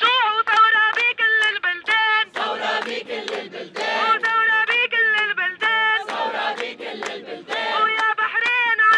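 A woman's voice leads a protest chant-song in short sung lines, and the crowd answers in unison with a chanted refrain, in call and response.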